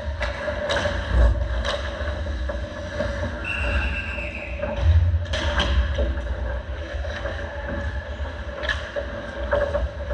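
Ice hockey play heard from the goal: skate blades scraping the ice and sharp clacks of sticks and puck, including a puck striking the goalie during a save. These sit over a steady rink hum and a constant low rumble. A brief high squeal sounds near the middle.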